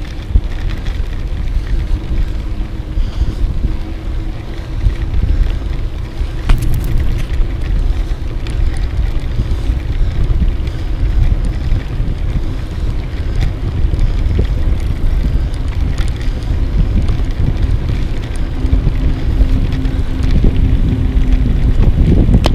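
Wind buffeting the microphone of a camera mounted on a moving bicycle, a steady low rumble, with a few sharp knocks, the clearest about six and a half seconds in.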